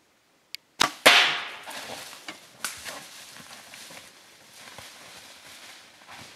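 Compound bow shot at a black bear: the sharp crack of the release, then, about a quarter second later, a louder whack of the arrow striking. It is followed by the bear crashing off through brush and dry leaves, with twigs snapping.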